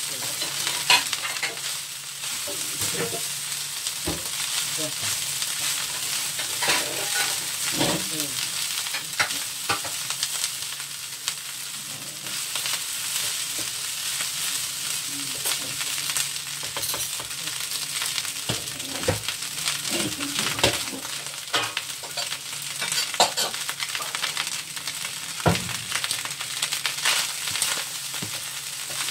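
Fried rice sizzling in a wok while a wooden spatula stirs and tosses it, scraping and knocking against the pan at irregular moments.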